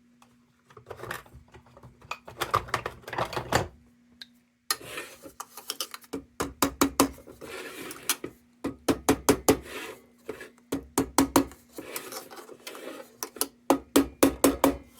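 Soft-tip hammer tapping the bent-over tabs down on a Dietz lantern's sheet-metal crown to secure them: many light, quick strikes in runs, over a faint steady hum.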